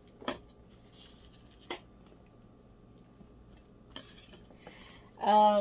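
Two sharp clicks and clinks on the metal counter as wax crumbs are handled, then a short rustle about four seconds in. Near the end comes a brief hummed 'mm' from a woman's voice, the loudest sound.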